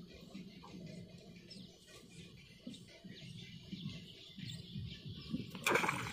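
Faint bird chirps, then near the end a sudden short splash as a bamboo fishing spear strikes shallow water.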